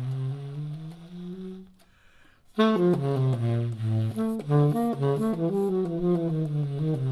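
Unaccompanied tenor saxophone played through a JodyJazz DV CHI mouthpiece, with a big, robust tone. A held note slides upward, then there is a brief break about two seconds in. After that comes a louder, fast run of jazz phrasing.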